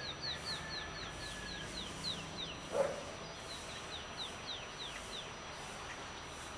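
A dog barks once, the loudest sound, about three seconds in. A bird sings two runs of short, high, downward-sweeping whistled notes, about four a second, over a steady low background hum.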